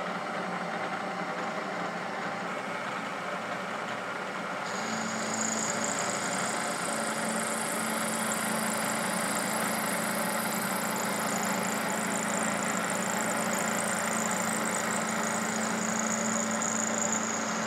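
Milling machine spindle running a carbide end mill at 1200 RPM, cutting a stainless steel bolt head. About five seconds in, a steady high whine and a lower hum join as a pass begins, and they stop near the end.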